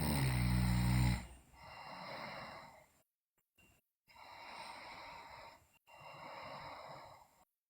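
A sleeping girl snoring: one loud, low-pitched snore in the first second, then three softer, breathy breaths about two seconds apart.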